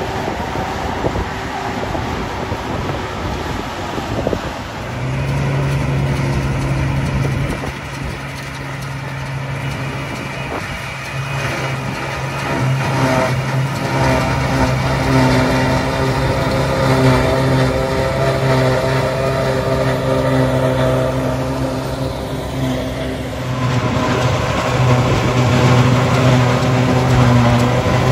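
Fendt 828 tractor working hard with its mounted Reco Mengele SH 40 chopper lifting first-cut silage: a steady engine and machine drone, joined by the Massey Ferguson 5711M tractor running alongside with the trailer. The note changes about five seconds in and again near the end.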